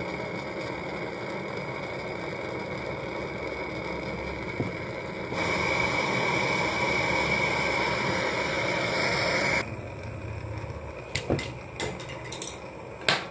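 Butane canister torch hissing steadily while heating a knife blade used to cut a plastic PCB cover. The hiss gets louder about five seconds in and cuts off suddenly near ten seconds as the torch is shut off, followed by a few sharp clicks and taps.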